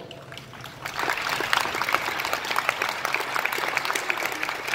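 An audience clapping: a few scattered claps at first, swelling into full applause about a second in.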